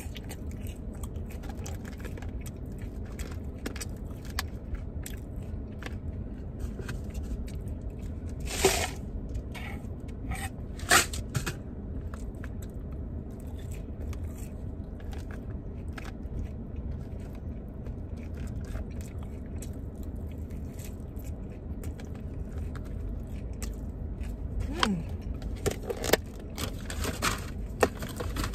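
Close-up eating sounds: chewing and mouth noises, with a plastic fork scraping and clicking in a plastic takeout container. A few louder scrapes come about nine and eleven seconds in and again near the end, over a steady low background rumble.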